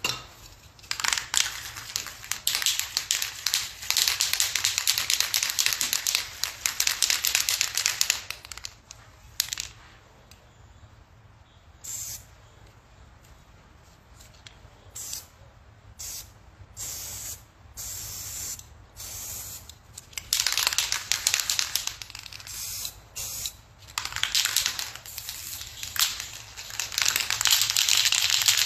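Aerosol spray paint can spraying in hissing bursts: one long spray of several seconds near the start, a run of short spurts in the middle, then longer sprays toward the end.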